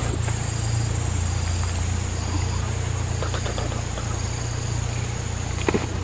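A steady low drone like a distant engine running, with a continuous high insect buzz over it and faint short high calls repeating about once a second. A few faint clicks come near the end.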